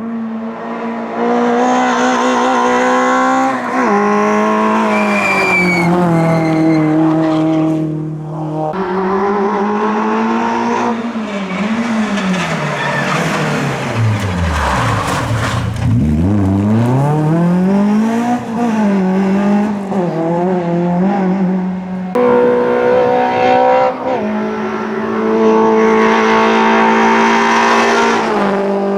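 Peugeot 106 rally car engine running hard at high revs, its pitch stepping up and down, with tyre squeal. In the middle the engine note drops right down and then climbs again.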